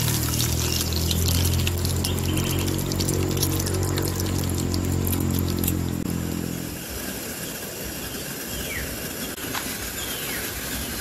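Luncheon meat sizzling and crackling in hot oil in a frying pan, over a steady low hum that stops abruptly about seven seconds in. After that, quieter outdoor background with a few short chirps.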